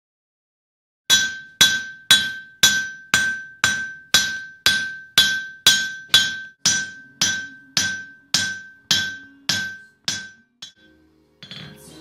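Steel anvil struck by a thin steel rod about twice a second, each tap leaving a clear, high ringing tone that dies away before the next. The taps grow fainter and stop near the end.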